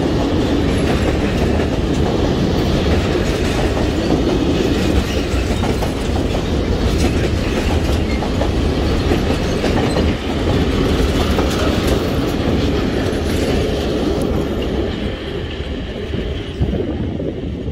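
Long freight train of blue covered wagons rolling past at close range, its wheels clattering over the rail joints. The noise eases over the last few seconds as the final wagons pass and draw away.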